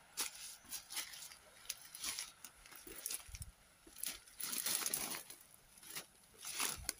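Footsteps crunching through dry fallen leaves and dead bramble stems, with the undergrowth rustling and crackling as it is pushed through: an irregular run of crackles, with a longer rustling stretch about halfway through.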